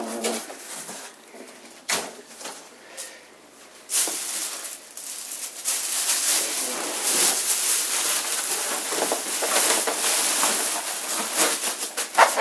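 Plastic bag around a combo guitar amp crinkling and rustling continuously as it is handled and pulled at, starting about four seconds in. Before that, quieter handling with a single knock about two seconds in.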